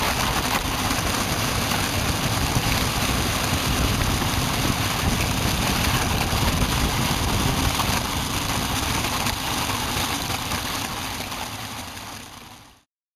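Wind rushing over the microphone and the blade runners of a kite-drawn ice buggy hissing over bare ice at speed, fading out near the end.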